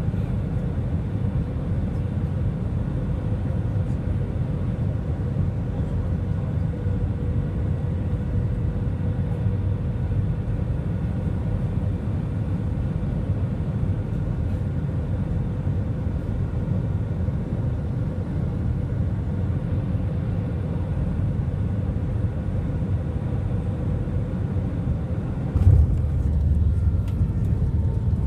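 Airbus A320 cabin noise on final approach: a steady rumble of engines and airflow with a faint constant hum. Near the end comes a sudden jolt and rattle as the wheels hit the runway in a hard touchdown without a flare, followed by a louder rumble of the rollout.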